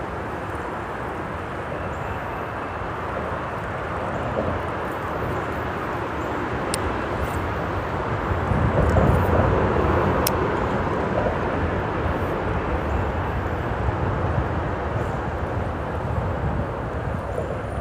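Steady rumble of freeway traffic on the bridge overhead, swelling louder about halfway through as a heavy vehicle passes, then settling back.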